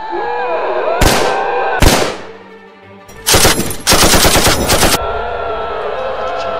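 Gunfire sound effects: two single gunshots close together, then a burst of rapid automatic fire lasting about two seconds, over background music.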